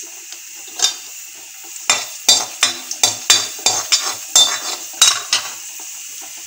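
A metal spatula scrapes and stirs about a dozen times in a metal kadai. Under it, mustard seeds, urad dal and chana dal sizzle steadily in hot oil as a tempering.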